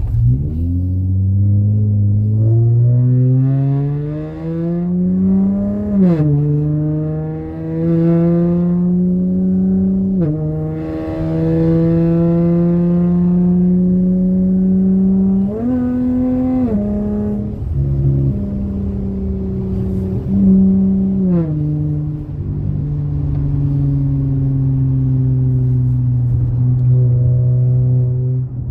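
Dodge Challenger SXT's V6 through a MagnaFlow Magnapack exhaust, accelerating through the gears: the engine note climbs and drops at upshifts about six and ten seconds in, holds steady, rises and falls twice more, then settles into a steady cruise.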